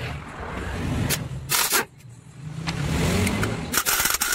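Impact wrench running and hammering in short bursts as it loosens the clutch-side nuts of a motorcycle engine, with a loud burst about one and a half seconds in and another near the end.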